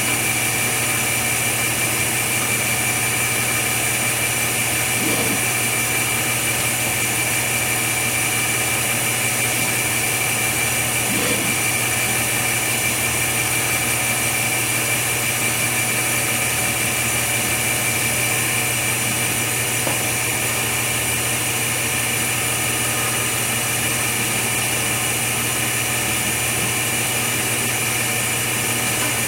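Steady machine hum with a high whine, holding constant throughout.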